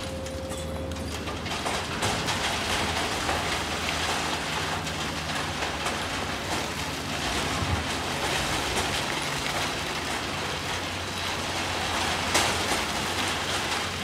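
Rock and sand clattering into the steel beds of dump trucks as hydraulic excavators, one a Sany, empty their buckets, over the steady low running of diesel engines. One louder knock comes near the end.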